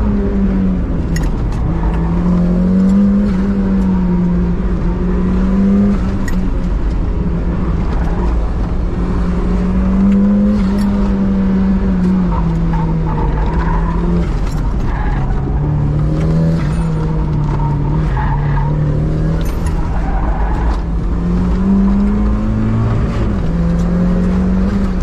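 Turbocharged 1.6-litre four-cylinder engine of a 1990 Mazda Miata pulling hard, heard from inside the cabin, its note rising and falling over and over as the throttle is worked through tight turns. Tyres squeal at times.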